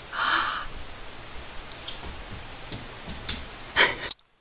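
A short burst of sound at the start, then scattered light ticks and one sharper click near the end, before the sound cuts off abruptly.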